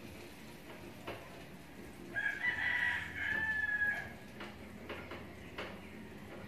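A rooster crowing once: one drawn-out call of about two seconds, starting about two seconds in. A few light clicks are heard around it.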